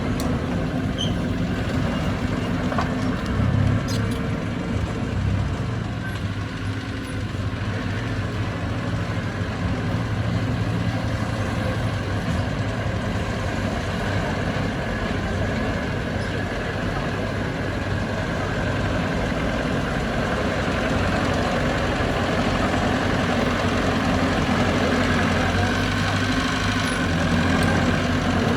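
Heavy diesel earthmoving machinery running steadily, a continuous engine drone with small rises in level.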